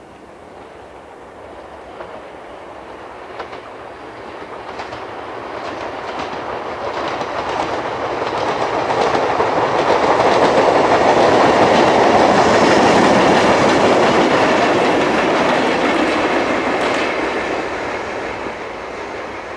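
Yoro Railway three-car electric train passing, with its wheels clicking over rail joints. It builds up gradually, is loudest a little past the middle, and fades away toward the end.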